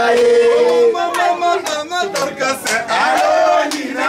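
Voices singing over music, with a held note in the first second and then shifting sung phrases.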